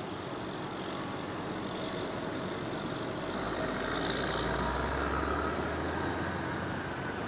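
A distant engine's steady rumble, swelling a little past the middle and easing again near the end, over outdoor background noise.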